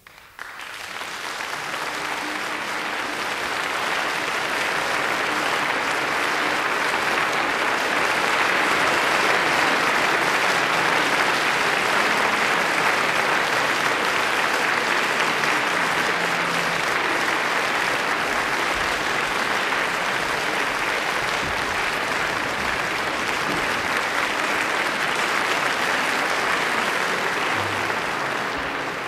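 Concert hall audience applauding, building over the first few seconds and then holding steady.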